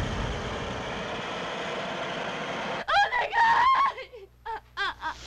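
Steady hiss of a blowtorch flame. About three seconds in it gives way to a high-pitched voice crying out in short, rapid rising-and-falling cries.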